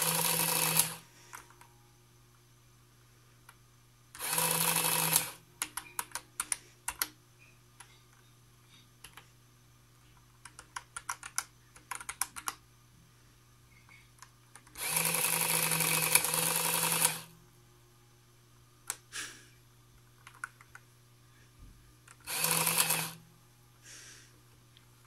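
Sharp EL-2901PIII printing calculator: its print mechanism buzzes four times in short stretches, one of them about two seconds long, as lines are printed on the paper tape. Between the printing bursts come quick runs of key clicks as numbers are entered.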